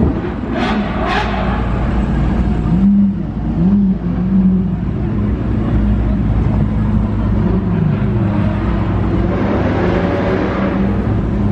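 Performance car engines running in slow street traffic, one giving three short throttle blips a few seconds in, with a louder rush of engine and tyre noise as a car pulls past near the end.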